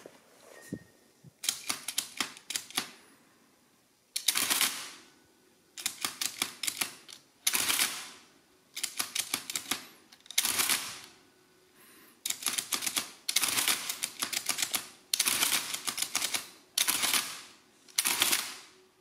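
1967 Olympia AE-8 electric adding machine with its case removed, running through its motor-driven cycles as keys are pressed. About ten short bursts of rapid mechanical clacking follow one another with brief pauses between.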